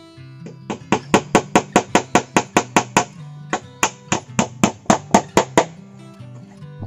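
Quick, sharp strikes of a tool on bamboo, about four to five a second, in two runs with a short break about three seconds in, over background music of plucked strings.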